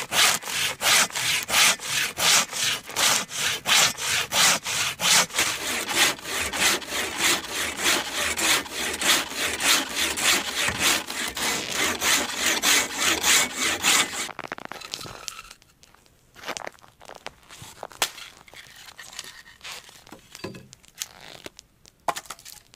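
Samurai hand saw cutting through a firewood log in quick, even strokes, about three a second. The sawing stops a little past halfway, and a few faint knocks follow.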